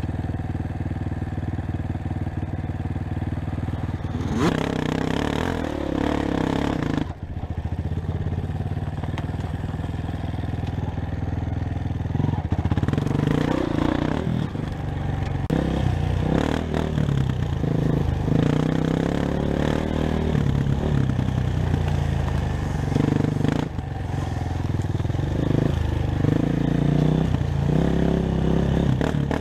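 Honda CRF230F four-stroke single-cylinder dirt bike engine idling, then revving up about four seconds in. It runs on under changing throttle, pitch rising and falling as the bike is ridden.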